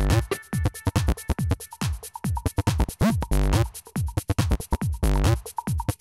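Electronic music with a fast drum-machine beat: deep kick drums that drop in pitch under rapid, crisp hi-hat-like hits.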